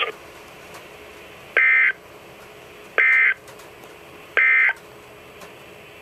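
NOAA Weather Radio EAS end-of-message signal played through a weather alert radio's speaker: three short bursts of warbling SAME data tone, about a second and a half apart, marking the end of the special marine warning broadcast, with faint hiss between the bursts.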